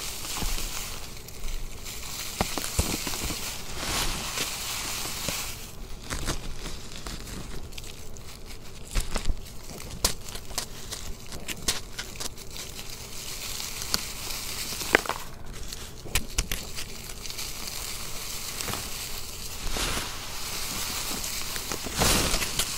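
Hands crumbling and crushing clumps of reformed gym chalk and charcoal packed with round confetti: continuous gritty crackling and crinkling with frequent sharp crunches. Near the end a louder rustle as the hands rake through loose confetti.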